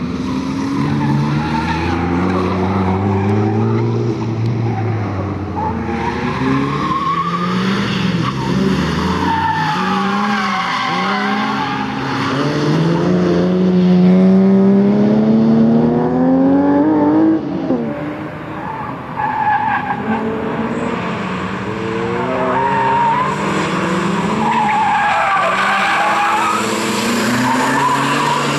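Ford Focus RS Mk1's turbocharged 2.0-litre four-cylinder driven hard on a circuit, its revs climbing and dropping again and again through gear changes, with one long pull past the middle that cuts off sharply. Tyres squeal through the corners.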